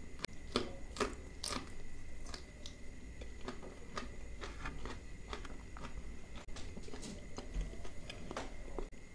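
Close-miked eating by hand: wet chewing and lip smacks on a mouthful of butter chicken gravy, in a run of short irregular clicks, over a faint steady high tone.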